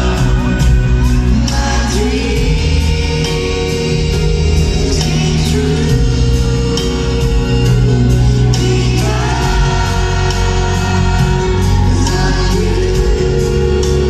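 Live amplified concert music: a woman singing long held notes into a microphone over a band, a slow ballad heard from the audience in an arena.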